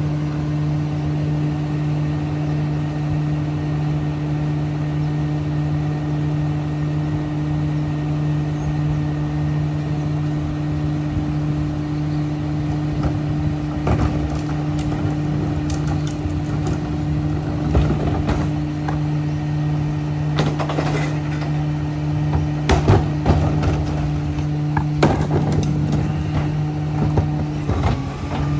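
Rear-loader garbage truck's diesel engine idling with a steady hum. From about halfway in come scattered knocks and rattles of plastic wheeled carts being rolled and handled, loudest near the end as a cart is brought to the truck's rear tipper.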